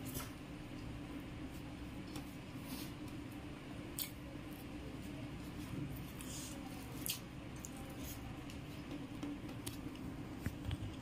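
Close-up wet chewing and lip smacks from eating rice with chicken liver and gizzard by hand, with a handful of short sharp wet clicks scattered through.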